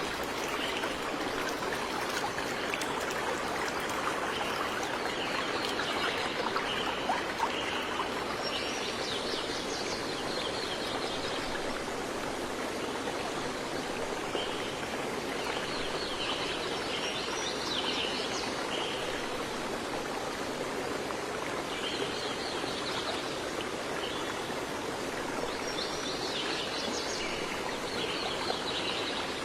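Steady rush of a flowing stream, with small birds singing short bursts of high chirps every few seconds over it.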